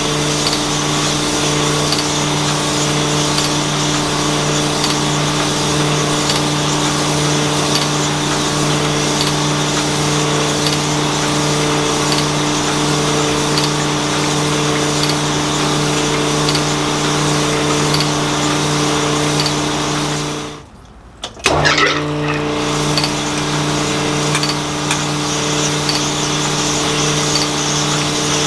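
Cylinder honing machine running steadily on a 292 engine block with a steady hum and a faint tick about once a second. The sound drops out for about a second about two-thirds of the way through, then picks up again.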